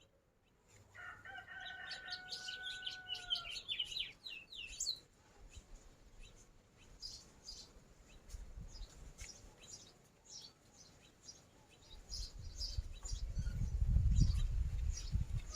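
A rooster crows once, one long call about a second in, while small birds chirp rapidly. Scattered chirps continue, and near the end a loud low rumble comes in.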